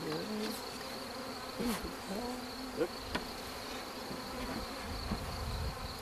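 Honeybees buzzing around an opened package of bees, single bees passing close with a hum that wavers up and down in pitch. A steady high whine runs underneath, and a dull low rumble comes near the end.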